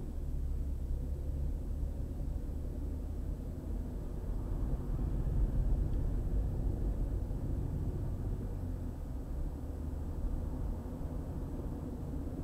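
A car driving at road speed on a highway: a steady low rumble of tyres and engine, swelling a little about halfway through.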